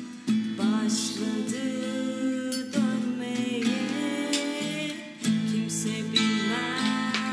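Steel-string acoustic guitar played in a steady accompaniment while a woman sings a slow melody over it.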